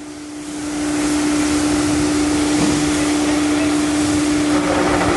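Hyundai Sonata DN8's six-speed automatic transmission running in gear with the wheels spinning free, building up over the first second to a steady grinding hum with one constant tone, like rear differential noise. The noise comes from inside the transmission, from a worn idler bearing.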